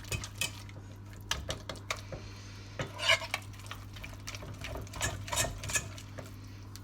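A whisk stirring thick potato-starch slime in a pot: irregular clicks and clinks of the whisk against the pot, with a few short scraping, squishing strokes.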